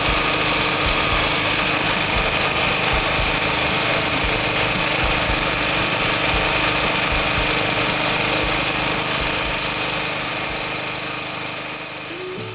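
High-pressure drain jetter running steadily at full pressure, a continuous engine-and-pump drone with a steady whine above it, fading a little near the end.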